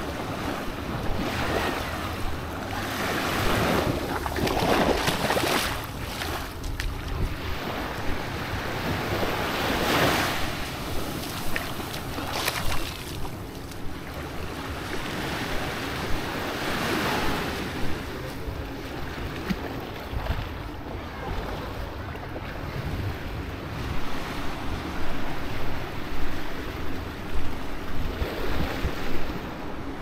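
Small waves washing up onto a sandy shore, swelling every few seconds. Wind gusts buffet the microphone, more strongly near the end.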